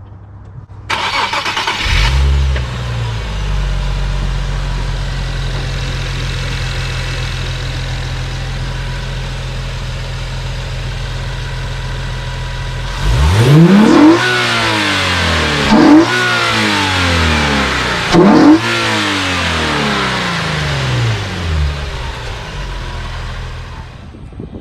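Infiniti G37S's 3.7-litre V6, fitted with Stillen dual cold air intakes, cold-starting: the starter cranks briefly and the engine catches into a steady high idle. About halfway through it is revved hard three times, each rev rising sharply and falling back, with a smaller blip after, then it returns to idle.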